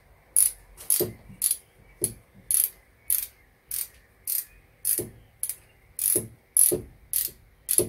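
Ratchet wrench worked back and forth in short, even strokes, about two clicks a second, snugging down a bolt on the motorcycle's fork triple clamp.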